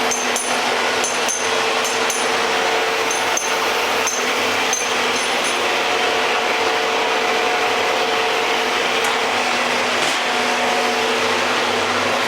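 Steady drone of running woodworking machinery, with several sharp clicks and knocks in the first five seconds.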